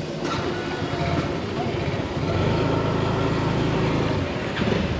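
A motor vehicle's engine running close by, growing louder about two seconds in and then holding steady.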